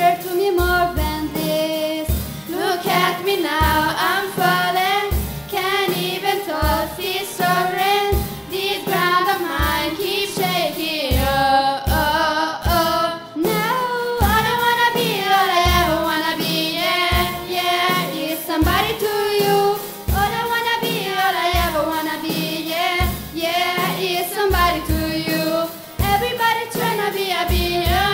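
A group of teenage girls singing a pop song live into microphones, with guitar backing and a steady low beat underneath.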